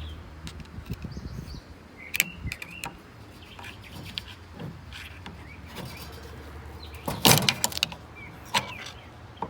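Scattered metal clicks and knocks from a fryer filter pump being handled and pried apart by hand, with a sharp cluster of knocks about seven seconds in. A low steady hum runs underneath.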